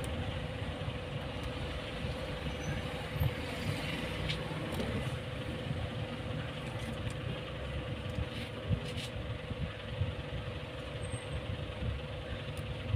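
Steady background rumble and hiss with a constant hum, with a few faint clicks and taps scattered through it.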